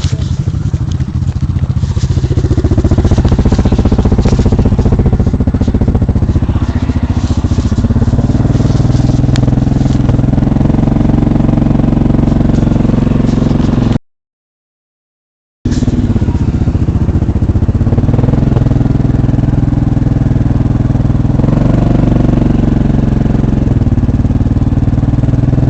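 ATV engine running steadily under load, its pitch stepping up about eight seconds in and then holding. The sound cuts out completely for about a second and a half near the middle.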